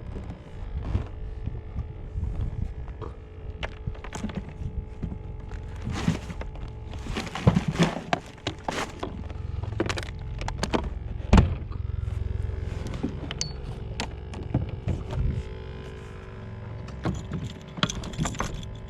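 Irregular knocks and clicks against a plastic kayak hull and gear as a caught fish is handled and measured, over a steady low rumble. One knock, about eleven seconds in, is louder than the rest.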